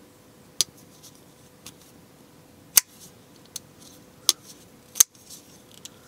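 Hawkbill folding knife, the Arcane Knives Vault, being flipped open and shut on its ceramic caged bearing pivot: about seven sharp clicks, roughly one a second. The clicks come from the blade snapping into lockup and being released and closed.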